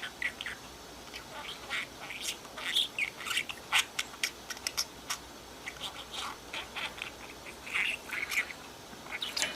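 Budgerigar chattering: an irregular run of short, high chirps and squawks.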